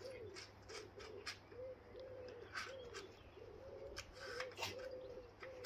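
A pigeon cooing over and over in a steady run of low, arched coos, with short high chirps now and then and a sharp click right at the end.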